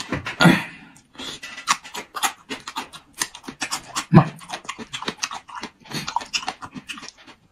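Man chewing while breathing hard and fast through his mouth, hissing and panting from the heat of fresh red chili peppers, with wet mouth clicks. Two louder breathy grunts stand out, one about half a second in and one about four seconds in.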